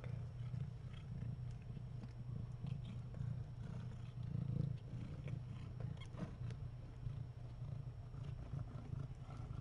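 Cat purring: a steady low rumble that flutters in level throughout.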